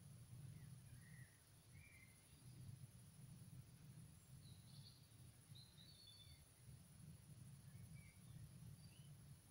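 Near silence: faint outdoor ambience of a low steady rumble, with a few faint, short bird chirps scattered through it.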